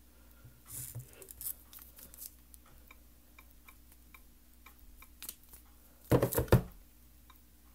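Soft, regular ticking of the Nexus 7 tablet's on-screen keyboard clicks as a Wi-Fi password is typed. A brief loud rustling thump of handling noise about six seconds in is the loudest sound.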